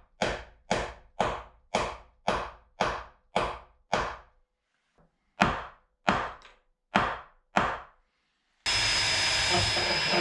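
Hammer driving nails through a clinker dinghy's wooden garboard plank into the ribs: two runs of steady blows, about two a second, with a short pause between. Near the end a cordless drill starts and runs steadily with a high whine.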